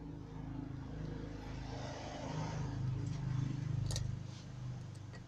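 A passing motor vehicle's engine hum, growing louder to a peak about three to four seconds in, then fading, with a single light click about four seconds in.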